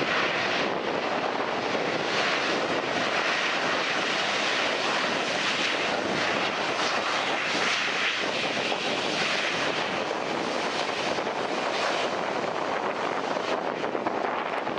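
Twin jet engines of a Boeing 737 running loud and steady during the landing rollout, the sound of reverse thrust slowing the airliner on the runway.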